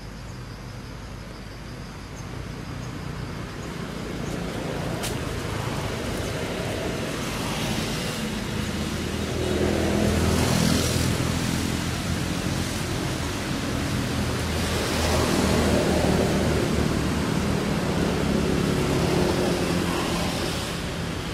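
Road traffic: the engine hum of passing vehicles, swelling and fading twice, first about halfway through and again a few seconds later.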